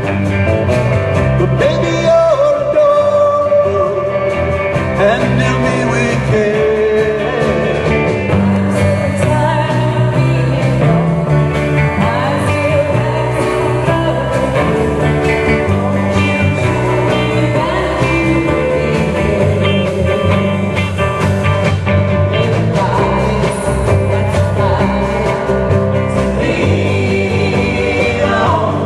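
Live rock band playing amplified music with guitars, bass and drums, and a singer's voice over it.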